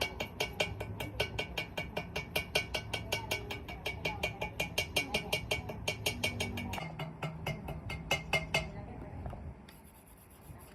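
Rapid, even metallic tapping, about five or six strikes a second, over a low machine hum; both stop shortly before the end.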